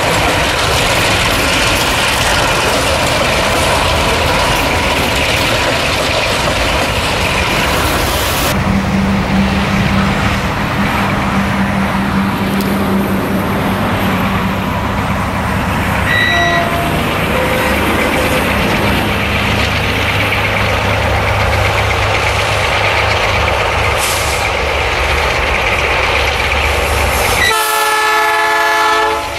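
Freight train rolling past, wagons and diesel locomotives running steadily. About a third of the way in the sound changes to a more distant steady diesel engine drone. Near the end a locomotive air horn sounds once, for about a second and a half.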